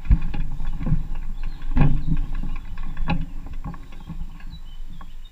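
Rumbling noise on the action camera's own microphone, with irregular knocks and thumps, easing off and stopping abruptly near the end.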